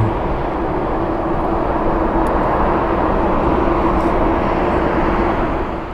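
Boeing 747-8's four GEnx-2B turbofan engines running at low taxi power as the jet rolls past: a steady rushing noise with a steady low hum, dipping slightly near the end.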